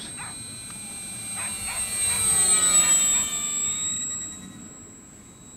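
Electric RC plane's brushless motor (3536 900KV) and 11x7 two-blade propeller whining in slow flight as the plane passes close by, getting louder to a peak about halfway through, dropping in pitch as it goes past, then fading.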